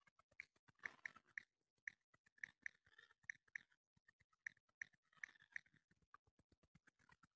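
Near silence with faint, irregular clicks, about two a second, that stop near the end.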